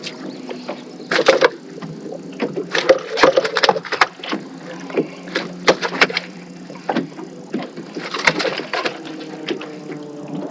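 A hooked hybrid striped bass being fought and landed at the side of a boat: irregular splashes, knocks and clicks over a steady low hum.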